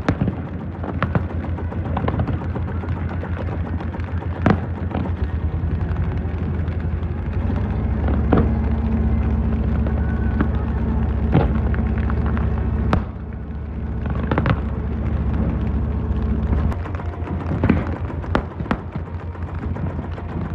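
Fireworks bursting in an irregular string of sharp bangs and booms, over a steady low drone that swells in the middle and drops back about three-quarters of the way through.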